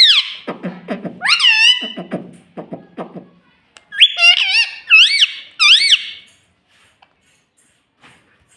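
Pet ring-necked parakeet calling: loud, shrill, high calls that swoop up and down in pitch, one at the start, one about a second in and a quick run of four between about four and six seconds, with low rapid chattering in between.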